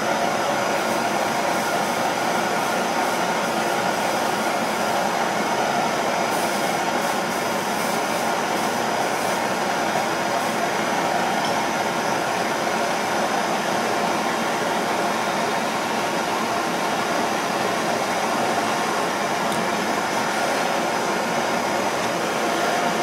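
Gas torch burning with a steady hissing rush of flame while it heats a fluxed filler piece held in locking pliers, ready for tinning with silver solder.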